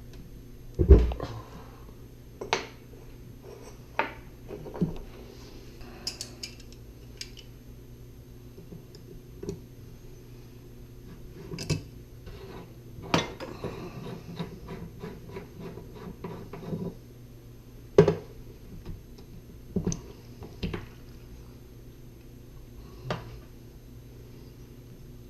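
Irregular metallic clinks, taps and knocks of a Delta single-handle kitchen faucet's parts and hand tools as the faucet is worked on for a rebuild, with the loudest knocks about a second in and again past the middle.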